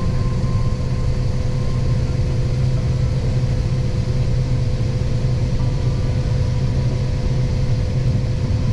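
Diesel tractor engine running steadily at a constant speed, a low even rumble with a faint steady whine above it.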